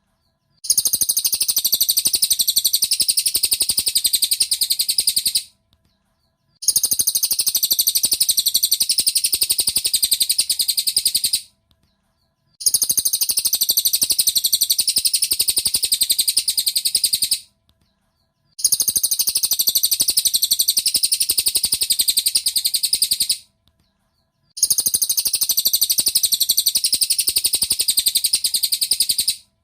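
Cililin bird song: bouts of about five seconds of very rapid, high chirping, repeated five times with a second's silence between them, like a looped recording.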